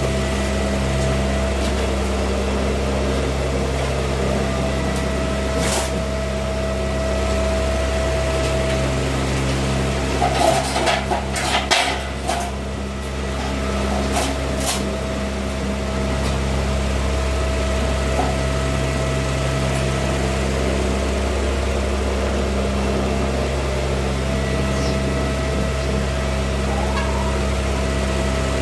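Steady machine hum with several clicks and knocks about ten to twelve seconds in.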